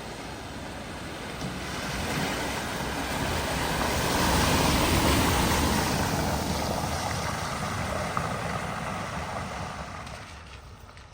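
A vehicle driving through a flooded ford: the rush of water it pushes aside swells to its loudest about halfway through, then fades away.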